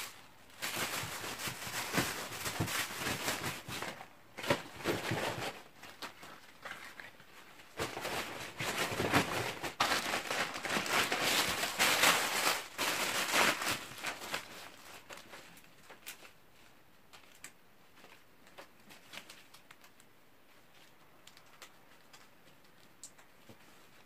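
Plastic bags and packaging rustling and crinkling in irregular bursts as things are packed into a suitcase. After about fourteen seconds it turns to faint, scattered taps and rustles.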